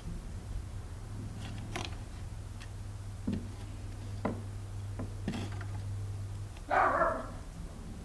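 A dog barks once, about seven seconds in. Before it come a few light clicks and taps over a steady low hum.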